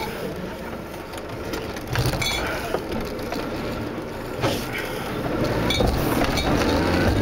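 Off-road four-wheel-drive vehicle's engine running under load as it moves off over rough dirt, heard from inside the cab and getting louder from about five seconds in, with scattered clinks and knocks from the body.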